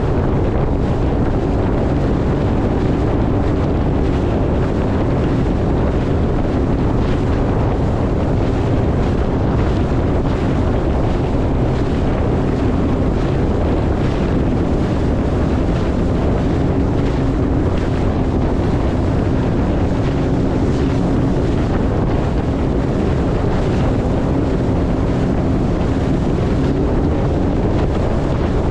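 Sea-Doo Fish Pro jet ski under way, its engine humming steadily under heavy wind rushing over the microphone.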